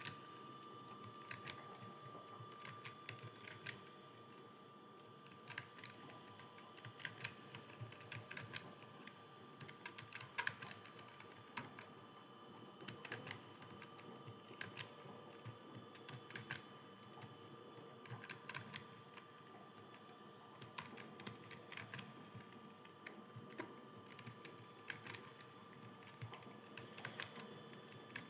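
Computer keyboard being typed on: faint keystrokes in uneven runs and pauses, over a steady faint hum.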